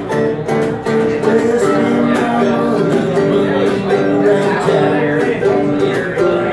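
Acoustic bluegrass-style duo playing: cigar box guitar and mandolin picked at a quick pace, with a rack-held harmonica sounding held notes over them.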